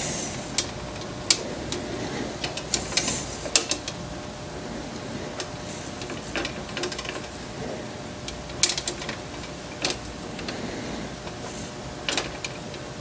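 Small tubing cutter being turned around a copper tube: irregular metallic clicks and short scraping sounds as the wheel cuts.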